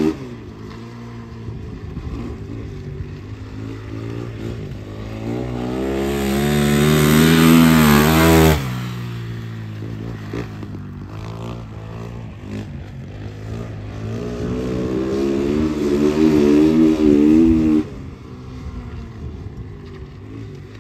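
Dirt-track motorcycle lapping a shale oval. The engine note builds under throttle to its loudest about eight seconds in, then drops off abruptly as the throttle shuts. A second pass builds again and cuts off sharply a few seconds before the end.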